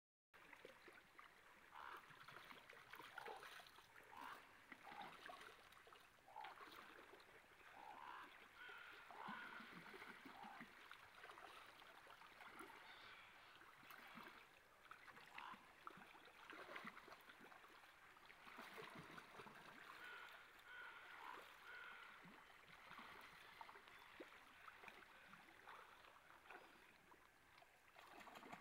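Salmon stream running, with many short bird calls over the water.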